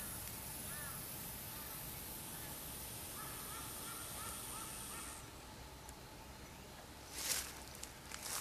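A bird calling faintly: one short call, then a quick run of about six calls, over a steady high-pitched hiss that cuts off about five seconds in. Near the end, footsteps rustle on dry leaf litter.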